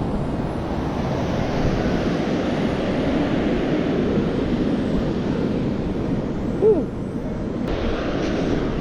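Strong wind buffeting the microphone as a steady low rumble. A brief rising-and-falling pitched sound cuts through about two-thirds of the way in.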